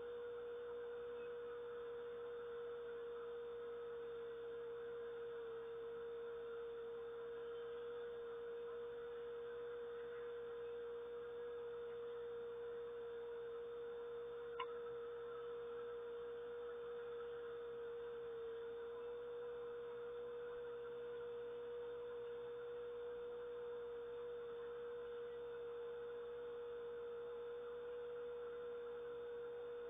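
A steady, single-pitched hum held throughout over a faint hiss, with one sharp click about halfway through.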